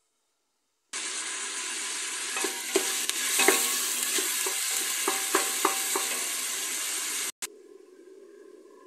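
Diced onion and minced meat sizzling in oil in a stainless steel pot, stirred with a wooden spoon that knocks against the pot several times. The sizzle starts about a second in and carries on much quieter after a sudden break near the end.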